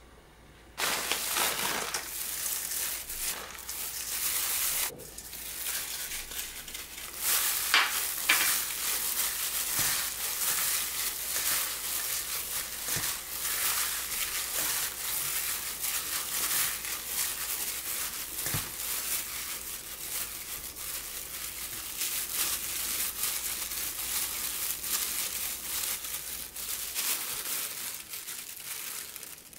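Plastic-gloved hand working cooked rice mixed with dried seaweed flakes: steady crinkling and crackling, starting about a second in with a brief break around five seconds.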